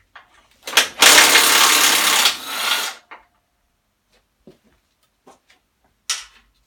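A handheld power tool runs in one burst of about two seconds, undoing a bolt, with scattered tool clicks and knocks around it.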